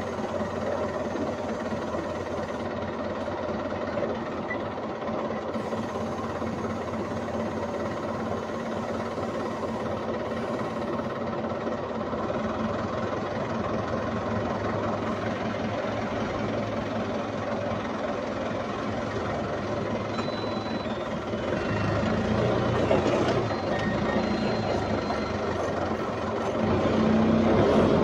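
Forklift engine running steadily under the operator, revving up about two-thirds of the way in and again near the end.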